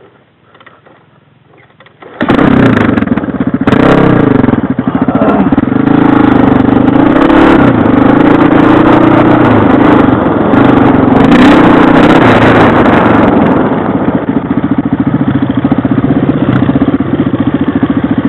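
Trail motorbike engine coming in suddenly about two seconds in, then running loud and revving up and down as the bike is ridden through scrub.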